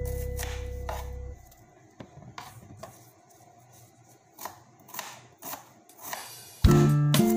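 Knife chopping red onion, about seven separate taps at an uneven pace. Acoustic guitar music fades out in the first second and starts again near the end.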